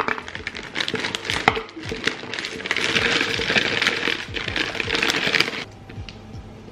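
Frozen mango chunks clattering into a plastic blender cup as sharp separate clicks, then frozen raspberries poured in as a denser rattling hiss. The pouring stops shortly before the end.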